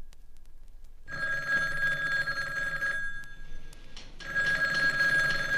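Telephone bell ringing twice, starting about a second in: two rings of about two seconds each with a short pause between, a fast trilling ring.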